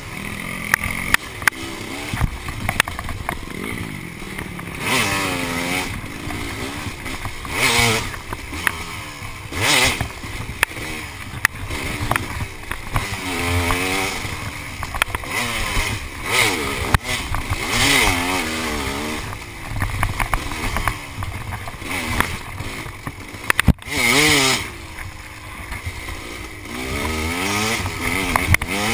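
KTM 300 EXC two-stroke dirt bike engine under way, revving up and down again and again as the throttle is worked, with short sharp knocks scattered throughout.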